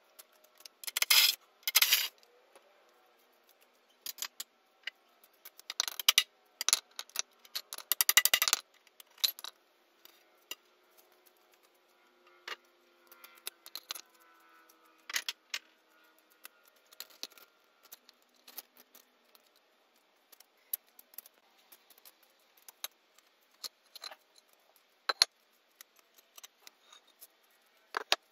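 Sharp metallic clinks of a hammer striking a steel fence-post bracket set in concrete, in quick runs of strikes during the first nine seconds, then scattered lighter taps.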